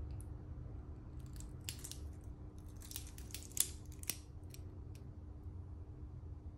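Steel link bracelet of a Seiko 5 Sports SRPD65K1 watch clinking as the watch is handled and turned over: a scatter of light metallic clicks, with two sharper ones in the middle, over a low steady hum.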